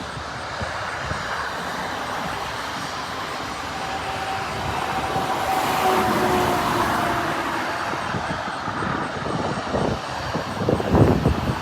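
Jet airliner engines rumbling as a Delta plane passes. The noise swells about halfway through, a faint whine sinks slowly in pitch, and there are rougher, louder bursts near the end.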